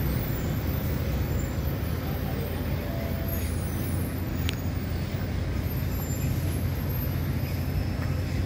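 Steady low rumble of city traffic, with a faint short click about four and a half seconds in.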